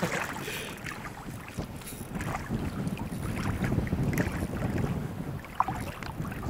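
Wind buffeting the microphone in a steady low rumble, with a brief squeak about five and a half seconds in.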